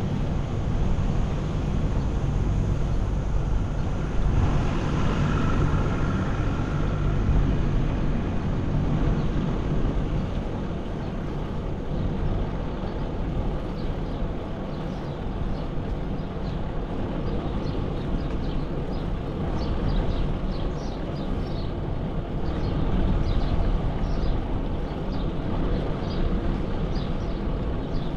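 Steady low rumble of wind and road noise from a bicycle ride, with a louder swell of noise about four seconds in that lasts a few seconds. In the second half, many short high chirps repeat, typical of birds at dawn.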